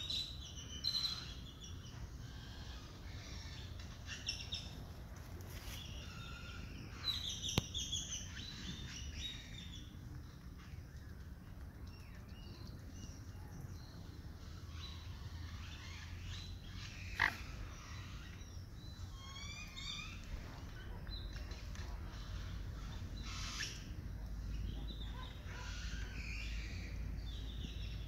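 Small songbirds chirping and singing intermittently, with a quick run of falling notes about two-thirds of the way through, over a steady low rumble.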